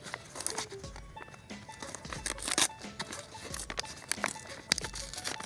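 Foil-lined brown paper ration bag crinkling and tearing as its sealed top is pulled apart: irregular soft crackles, with the sharpest rips about two and a half seconds in. Faint background music plays behind it.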